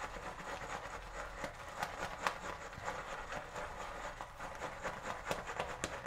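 A shaving brush whipping shave soap lather around a silicone lathering bowl: a fast, continuous wet swishing full of quick crackling ticks, with a few sharper ticks. The lather has just been given more water and is billowing up.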